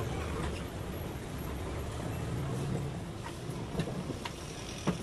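Cabin noise inside an electric bus rolling slowly: a steady low rumble, with a few light knocks or rattles in the last couple of seconds.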